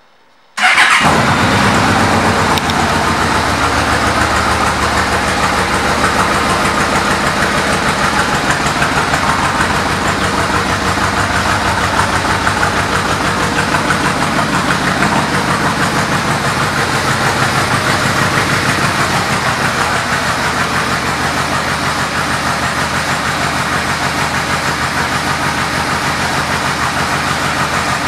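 2008 Yamaha Royal Star Venture's 1300 cc V4 engine, fitted with a Vance & Hines exhaust, starting about half a second in and then idling steadily.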